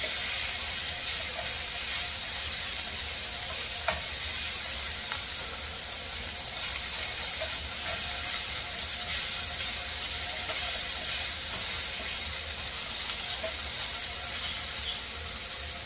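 Steak, chicken and zucchini sizzling steadily in a frying pan while a spatula stirs them, with one light tap of the spatula about four seconds in.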